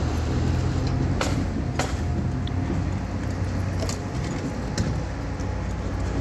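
A steady low engine drone of construction machinery running, with several sharp metallic clinks of tools in a tool belt as the worker hurries along and drops it on the ground.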